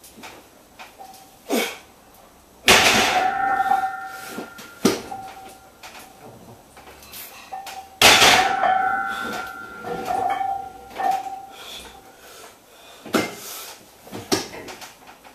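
A loaded steel barbell clanging down onto a power rack's safety pins twice, about five seconds apart, each strike leaving a ringing metallic tone, with lighter clinks of the bar and plates in between.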